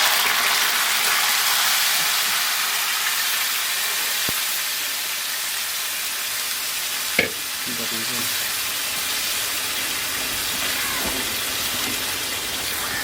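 Spiced sauce frying in a pan, sizzling steadily, with one sharp knock about seven seconds in.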